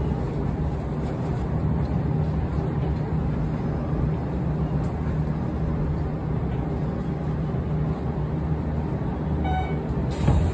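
Sanyo Electric Railway electric train running, heard from inside the front cab: a steady low rumble of wheels on rails and motors. A short beep sounds near the end.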